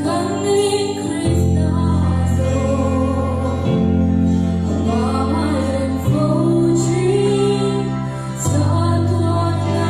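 Two young female voices singing a gospel hymn in Mizo through microphones over a recorded backing track, whose sustained chords change about every two and a half seconds.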